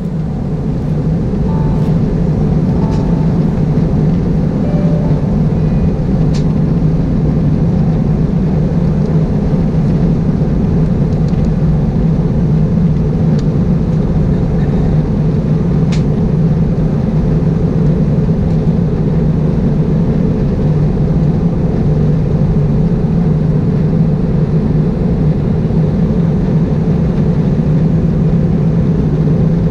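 Steady cabin noise of an Airbus A320-211 in flight, heard from a window seat beside the wing: its CFM56 turbofan engines and the rush of air over the fuselage, with a strong low hum.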